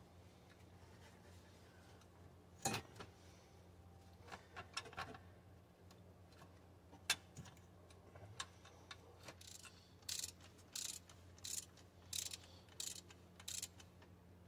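Faint metal clinks of parts being handled, then from about ten seconds in a hand ratchet worked in short clicking strokes, roughly one and a half a second, tightening a bolt on the engine's water pump.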